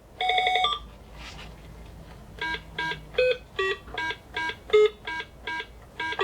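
Parker Brothers Merlin handheld electronic game beeping. One short buzzy tone comes first, then from about two and a half seconds in a run of short beeps at different pitches, a little over two a second, playing a simple tune.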